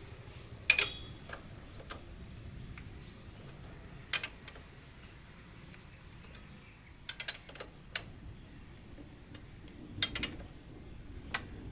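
Steel ring spanners clinking and knocking on a motorcycle's rear axle nut as it is forced loose anticlockwise. There are scattered sharp metal clicks: one near the start, one about four seconds in, a quick run of four around seven to eight seconds, a double about ten seconds in, and one near the end.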